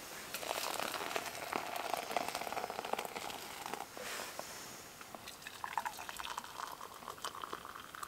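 Hot water poured from a kettle into a metal camp pot, about three and a half seconds of pouring, then a second, higher-pitched pour starting about five and a half seconds in.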